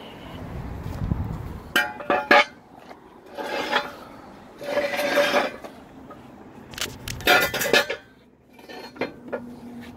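Steel jack equipment being handled under a truck: metal clanks and clinks in a few short clusters, about two seconds in and again near eight seconds.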